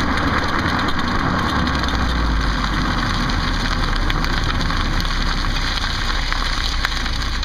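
2008 Ford Focus: steady car noise with a low rumble, and faint irregular clicks that the owner traces to a back wheel but cannot locate.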